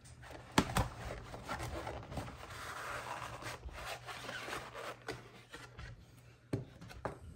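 Cardboard motor box being opened and handled, with rubbing and sliding of the box flaps and packaging and several sharp taps or clicks. The loudest tap comes just after half a second in, and another comes near the end.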